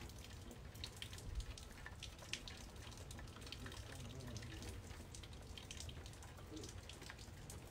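Rain dripping and pattering, irregular drops ticking close by over a faint steady low noise.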